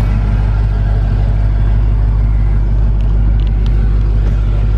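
Supercharged 6.2-litre Hemi V8 of a 2017 Dodge Challenger SRT Hellcat idling steadily with a deep, even rumble.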